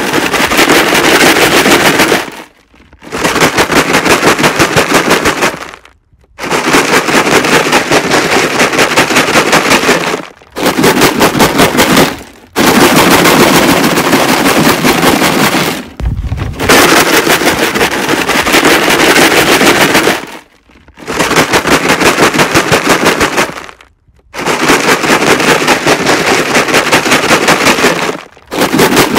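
Jug of rocks, the PSA PDC distraction: rocks rattling inside a plastic jug shaken hard. A fast, rhythmic clatter comes in bouts of a few seconds, broken by several short pauses.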